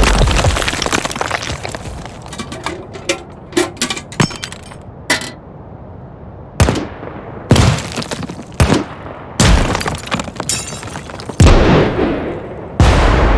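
A string of explosion sound effects. A blast's debris and breaking glass crackle and rattle on for several seconds. Then, from about the middle, comes a quick series of about seven sharp blasts, each dying away in a rumbling tail.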